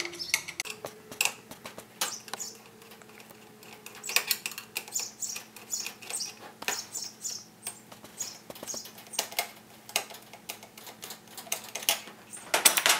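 Small screwdriver turning screws out of a heater's metal switch strip: a run of irregular clicks and short high scrapes of metal on metal, with a denser, louder cluster of clicks near the end.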